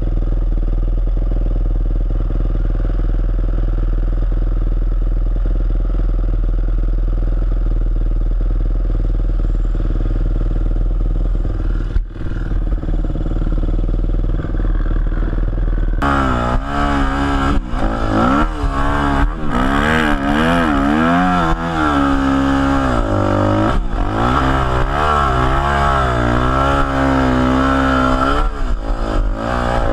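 Yamaha YZ250F dirt bike's single-cylinder four-stroke engine idling steadily, then from about halfway through revving up and down repeatedly as the bike rides off.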